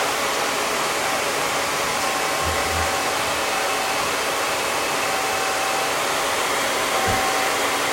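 Handheld hair dryer blowing steadily, drying freshly applied wig glue.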